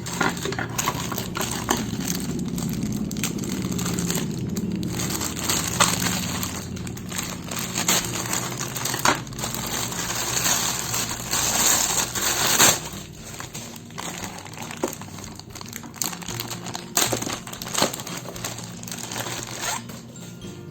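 Plastic packaging crinkling and rustling as it is handled, broken by sharp clicks and taps. The rustling grows louder for a few seconds just past the middle.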